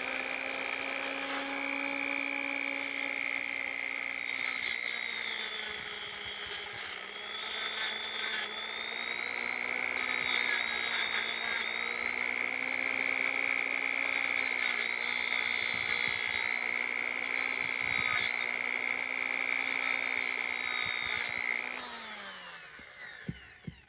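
Small high-speed rotary tool running as it cleans a ratchet part. Its whine dips in pitch each time it is pressed to the work, then spins down and stops near the end.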